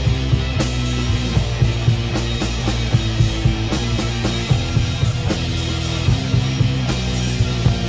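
Rock band playing live: electric guitars, bass guitar and drum kit, with a steady drum beat under sustained bass and guitar chords.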